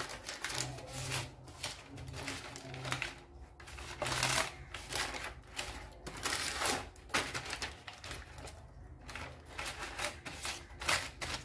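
Baking paper lining a metal baking tin rustling and crinkling as it is rubbed and pressed into the corners by hand while butter is spread over it, in irregular scratchy strokes.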